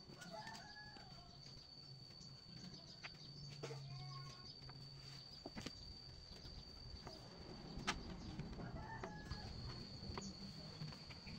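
Faint chicken clucking in three short bouts over a steady thin high whine, with a few sharp metallic clicks from the eye bolt and steel tube being handled.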